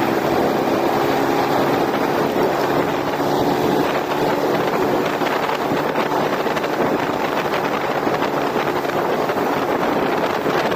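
Wind rushing over the microphone of a moving motor scooter, with the scooter's small engine running steadily underneath.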